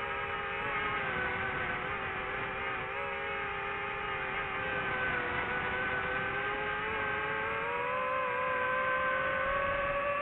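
FPV drone's electric motors and propellers whining steadily. The pitch dips slightly through the middle and then rises gradually over the last few seconds as the throttle changes.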